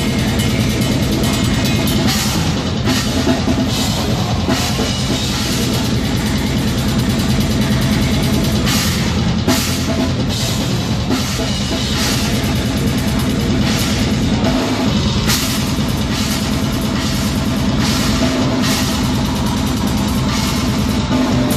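A live metal band playing loud, heard from right beside the drum kit: rapid bass drum and repeated cymbal crashes up front over sustained low notes from the rest of the band.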